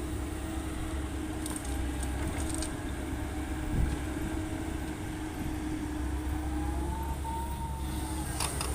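Heavy diesel machinery engine running steadily, with a single thump about four seconds in.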